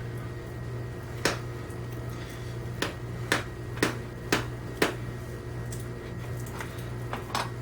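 A tin of Skoal vanilla dip being packed: a series of sharp taps on the can, six at about two a second, then a few more near the end.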